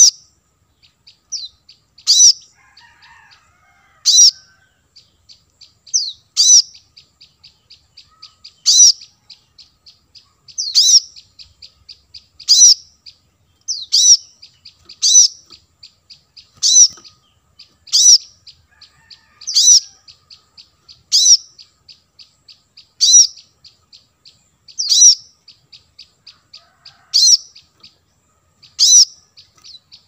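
Brown-throated sunbird calling: a sharp, high call repeated about every two seconds, over a fast, steady run of faint, high ticking notes.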